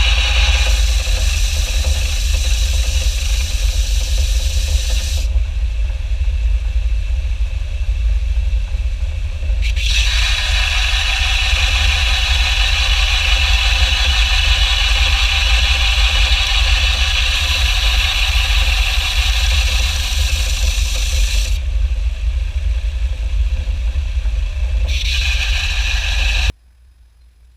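Steady abrasive scraping on metal, in long spells that stop and start abruptly, over a constant low rumble; it all cuts off suddenly near the end.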